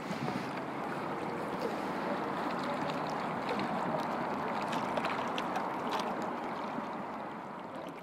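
Small wind-driven lake waves lapping and splashing close by, a steady wash with scattered little splashes, fading out near the end.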